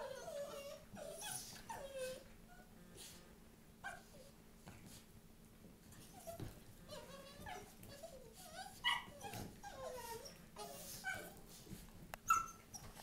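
Two small dogs play-fighting, making short whimpering and growling noises with yips, scattered throughout and loudest near the end.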